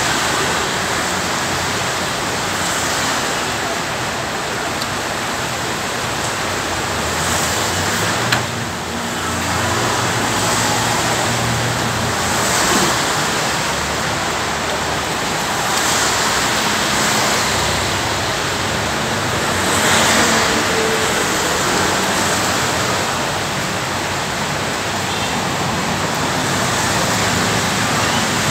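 Heavy rain falling in a steady, dense hiss, with a low hum underneath at times and one sharp click about eight seconds in.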